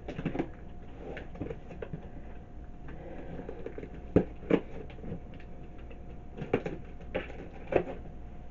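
A cardboard box being cut open with a box opener and handled: scattered light knocks and scrapes, with a few sharper taps about four seconds in and near the end.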